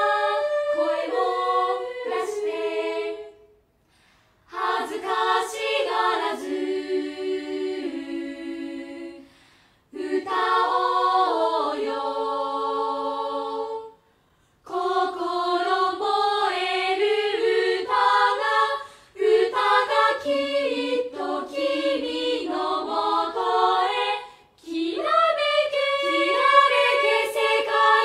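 Student choir singing a cappella, sustained sung phrases separated by brief silent breaks.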